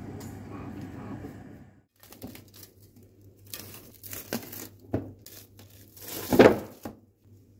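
An oven running with a steady hum for about two seconds. Then plastic cling film crinkles and tears in irregular crackles as it is peeled off a glass baking dish, loudest near the end.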